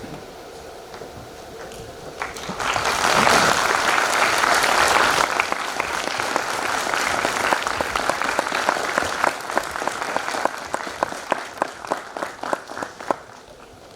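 A large audience applauding. The clapping breaks out about two and a half seconds in, thins into scattered single claps and dies away shortly before the end.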